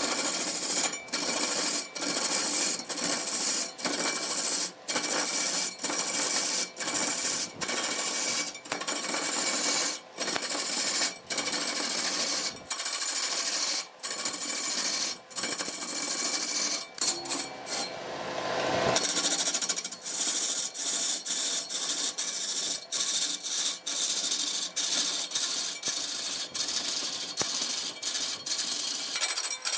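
Woodworking tool noise as wood is cut and shaped: a harsh, steady grinding and scraping, broken by many brief drops about once a second and changing in character twice.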